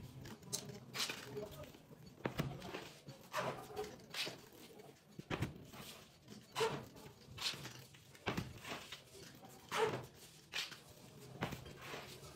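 Irregular rustles and light knocks from metal trays of sweets, wrapped in plastic cling film, being handled and set down, with a few brief squeaks among them.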